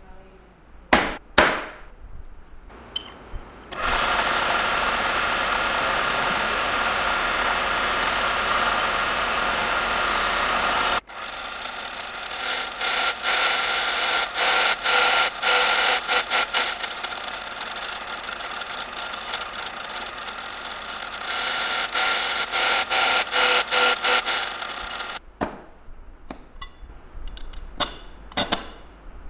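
Two sharp metal strikes about a second in, from a hammer on a center punch marking steel flat bar. Then a drill press with a twist bit boring through the steel: a steady noise for several seconds that cuts off suddenly, then drilling again with a rapid pulsing chatter for about fourteen seconds. Light metal clicks and clatter follow near the end.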